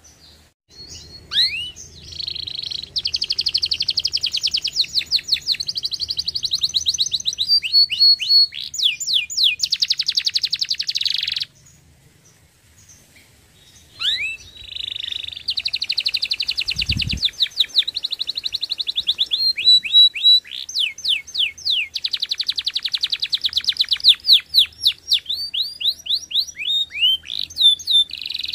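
Domestic canary singing: two long song phrases of fast rolling trills and repeated rising whistled notes, with a pause of a couple of seconds between them. A brief low thump sounds during the second phrase.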